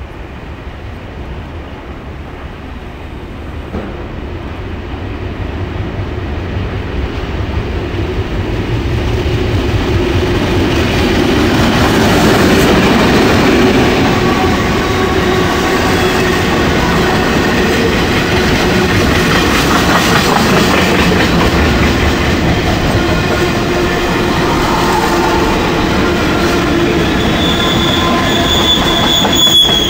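Container freight train passing close by. It grows louder over the first ten seconds or so, then settles into a steady rumble of wagons rolling past, with thin high wheel squeal tones from about midway and a sharper squeal near the end.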